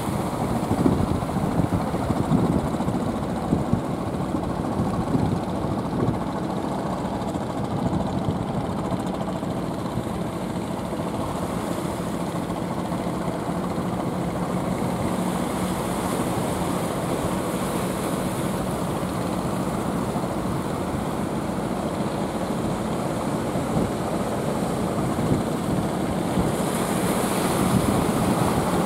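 Engines of small outrigger fishing boats running steadily with a low hum as the boats motor through the surf, over the wash of breaking waves.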